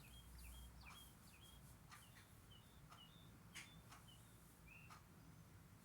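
Faint songbird chirps: short, quick calls repeated every half second or so, over a low steady hum, with a few faint clicks.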